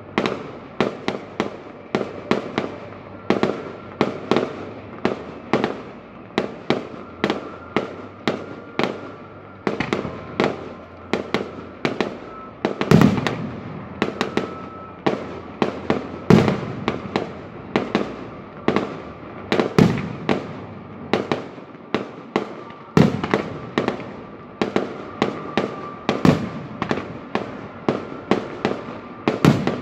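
Aerial fireworks going off in a rapid, continuous run of sharp bangs, two or three a second, with louder, deeper booms every few seconds.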